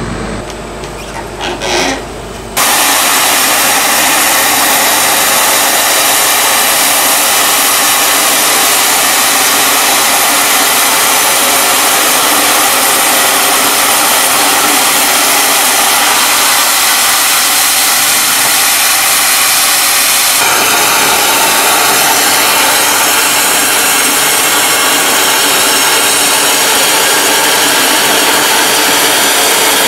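Large horizontal bandmill's band blade sawing through a big oak log, about 1.4 m thick: a loud, steady cutting noise that starts suddenly about two and a half seconds in, after a quieter machine hum.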